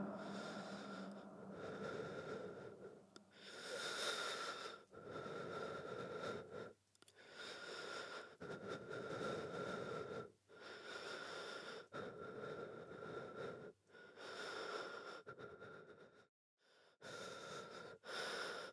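Heavy, laboured breathing: about a dozen long, breathy breaths in and out, each a second or two long, with short pauses between them.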